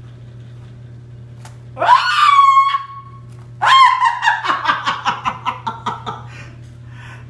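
A person's excited, high-pitched squeal about two seconds in, followed by a burst of laughter lasting about three seconds, over a steady low hum.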